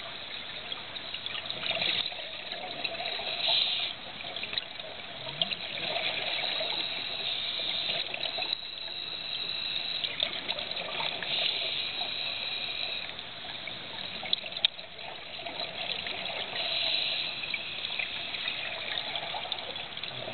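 Scuba diver breathing underwater through a regulator: bubbling exhaust and hiss that swell in surges about every five or six seconds.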